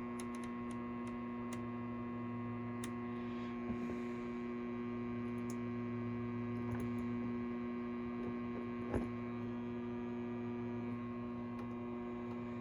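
Steady electrical mains hum from running bench electronics, with a faint click or two.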